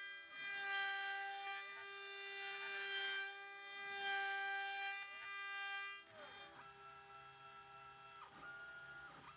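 CNC spindle running with a steady high whine as its end mill cuts a nut shape into the metal flanges of blind nuts. The cutting noise swells and fades over the first six seconds, then settles quieter.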